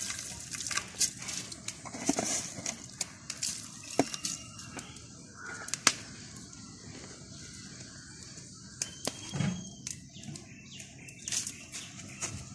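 Quiet outdoor ambience: scattered sharp clicks throughout, with faint chicken and small bird calls here and there.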